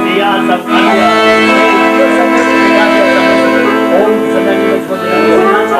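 Chromatic button accordion playing a tune: held low notes under a fast, ornamented melody.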